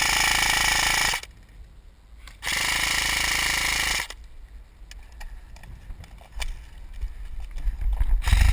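KWA M4 airsoft rifle firing two long full-auto bursts, each about a second and a half, a little over a second apart. Lighter clicks and knocks follow, with a low thump near the end.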